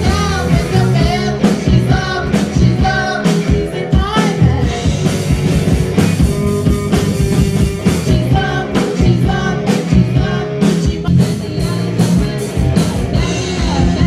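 A live rock band playing loudly: a female lead singer over electric guitar, bass guitar and drum kit.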